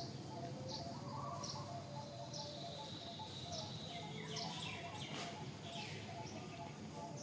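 Small birds chirping in the background: short, high, falling chirps repeating every second or so, with a busier cluster of calls a little past the middle, over a lower short note repeating a few times a second and a steady low hum.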